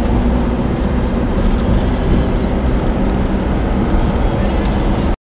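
A motor vehicle running, a steady low rumble with a few faint ticks.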